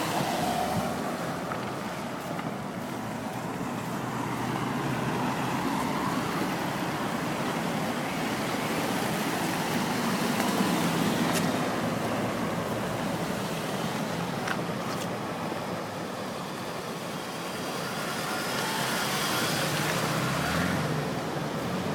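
Road traffic: vehicle engines and tyre noise running steadily, swelling as vehicles pass by, about halfway through and again near the end.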